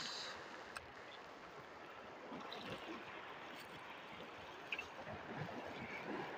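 Braided line hissing off a Shimano Sienna 2000 spinning reel at the end of a cast, stopping about a third of a second in. Then faint sea water lapping at the shore rocks, with a couple of small ticks.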